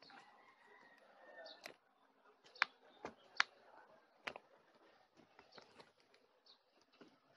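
Slime with beads mixed in being squished and stretched by hand. A soft squishing for the first couple of seconds, then a run of short, sharp pops and clicks, the loudest near the middle.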